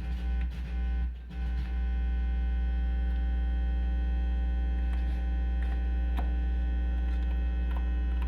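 Loud steady mains hum through a stereo's speakers, picked up by a P2 (3.5 mm) to RCA cable plugged into the auxiliary audio input. It dips briefly twice near the start, then holds steady, with a few faint clicks.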